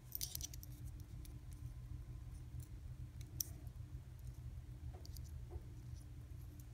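Faint, scattered small clicks and ticks of a precision screwdriver tip and tiny metal valve-gear rods being worked into an N scale Bachmann 0-6-0 locomotive chassis, the sharpest about three and a half seconds in, over a steady low hum.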